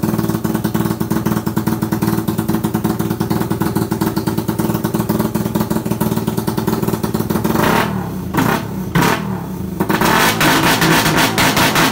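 Motorcycle engine fitted with a CNC dual throttle body, running with a rapid, even run of firing pulses. About eight seconds in it drops and breaks up briefly, then picks up again louder.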